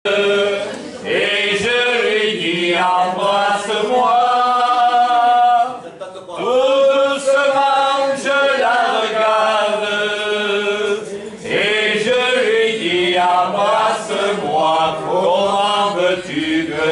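Unaccompanied singing in French, a slow song of long held notes with vibrato, with breaks for breath about six and eleven and a half seconds in.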